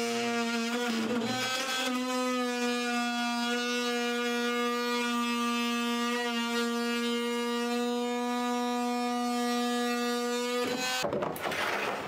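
A single long, steady musical note with a buzzy, reedy tone, held for about eleven seconds and cutting off sharply a little over a second before the end.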